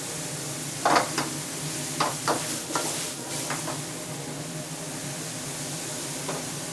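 Metal wok ladle clanking and scraping against a steel wok as chicken and mushrooms in sauce are stir-fried, with a few sharp knocks between about one and four seconds in and one more near the end. Underneath, a steady sizzle and the steady roar of the gas wok burner.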